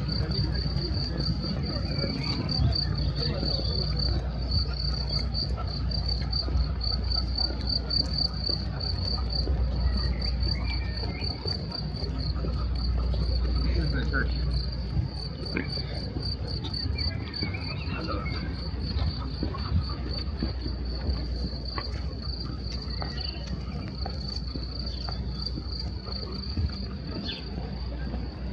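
Insects chirping steadily in a high, fast-pulsing trill, over a constant low rumble.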